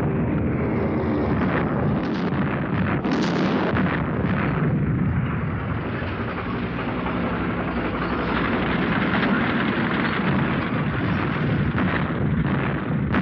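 Artillery fire and explosions over a steady rumble of battle, with several sharp blasts in the first few seconds and again near the end.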